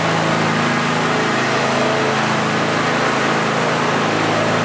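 Ride-on lawn mower engine running steadily at a constant speed while the mower tows a load, with no change in pitch.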